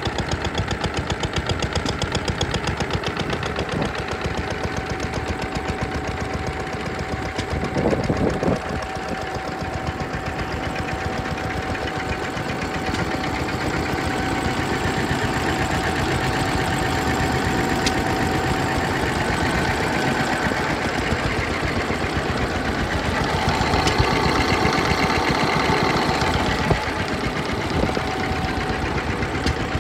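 A Lister stationary engine running steadily with an even, rapid beat as it belt-drives a small generator, with a steady thin hum over the beat.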